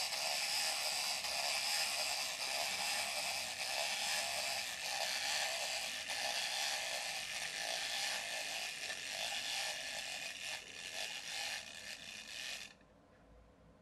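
Wind-up plastic walking toy figure's clockwork motor whirring with rapid ratcheting clicks as it walks across a wooden floor. The clicking grows uneven as the spring runs down, then stops abruptly near the end.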